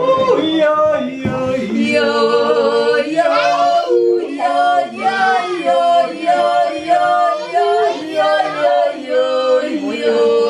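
Men's and women's voices yodeling together in harmony, unaccompanied, holding long notes with quick jumps in pitch between them.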